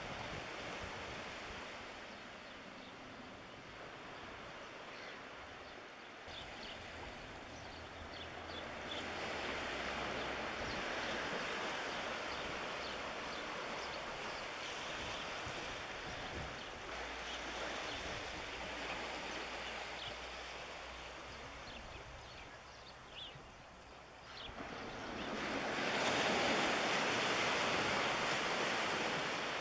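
Wind and small waves at the shoreline: a steady rush of noise that swells louder about nine seconds in and again near the end.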